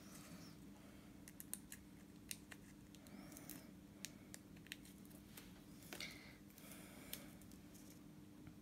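Faint scattered clicks and soft rustles of paper and planner stickers being handled and pressed down, over a faint low steady hum.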